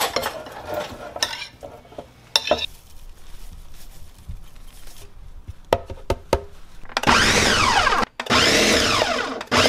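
Countertop blender chopping raw surf perch fillets into paste, run in two short pulses of about a second each near the end, its motor pitch rising and falling within each pulse. Before the pulses, a few scattered knocks and clicks.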